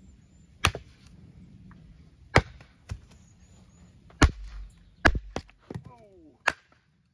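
A thrown tomahawk striking wood: about eight sharp, woody knocks at irregular spacing as it hits the log target and the firewood and clatters among the logs.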